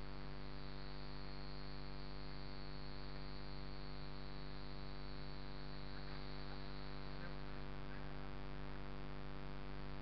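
A steady buzzing hum with many evenly spaced overtones, holding level throughout.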